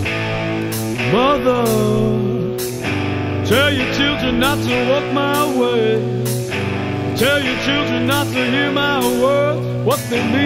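Rock song with a singer, electric guitar and a steady drum beat.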